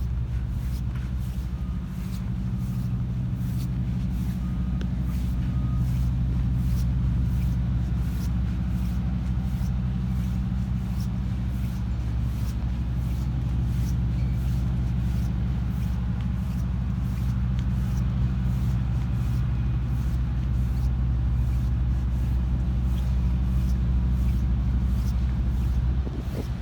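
An engine running steadily with a low, even drone, with faint regular ticking over it at about two ticks a second.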